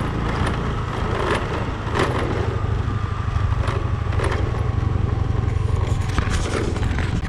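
Motor scooter running steadily along a rough dirt track, with a low continuous drone and several short clattering knocks as it rides over bumps.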